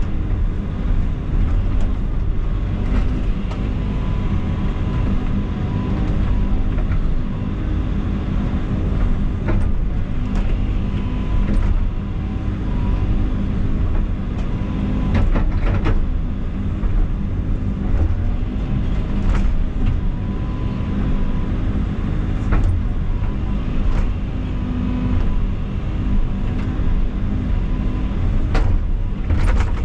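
Excavator's diesel engine running steadily under work, with several sharp knocks scattered through it.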